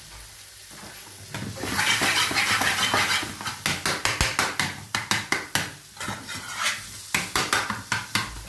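Spatula stirring and scraping an onion, spice and tomato-sauce mixture frying in a pan. A loud sizzle rises about a second and a half in as the food is turned over the heat. After that come repeated sharp scrapes of the spatula against the pan, about two a second.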